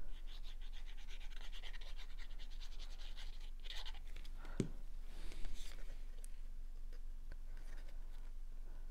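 Fine-tipped liquid glue bottle being squeezed while its nozzle is drawn across cardstock, a scratchy, rhythmic sound as lines of glue go down, lasting the first few seconds. About halfway there is a soft knock, then quieter paper handling.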